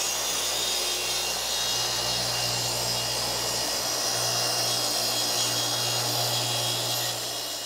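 Track saw making a long, steady crosscut through a full sheet of plywood along its guide rail, the motor and blade running at an even pitch and load, then dying away near the end as the saw is switched off.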